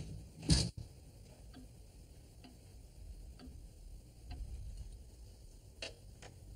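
Longcase clock ticking slowly in a quiet room, about once a second, with one sharp knock about half a second in and a smaller click near the end.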